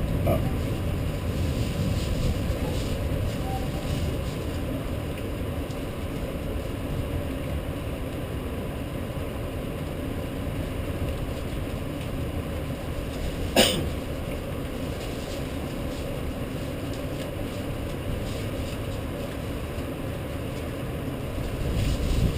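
Steady low rumbling noise of a rainstorm over a city, with one short sharp crack about thirteen and a half seconds in.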